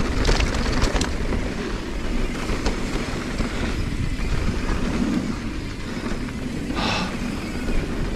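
Mountain bike rolling down a dirt trail: a steady rumble of tyres and wind on the microphone, with rattling clicks in the first second and a short hissing scrape about seven seconds in.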